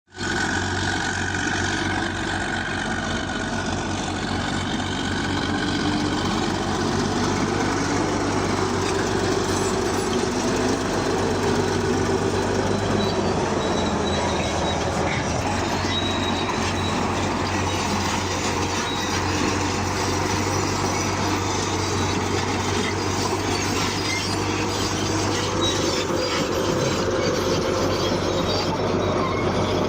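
Bulldozer working: its diesel engine runs steadily with a low hum, over the continuous clanking rattle of its steel tracks, with a few brief high squeals.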